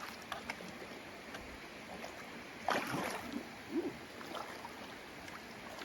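Creek water running over rocks, with scattered knocks as a hiker steps across the stream crossing and one louder thump or splash nearly three seconds in.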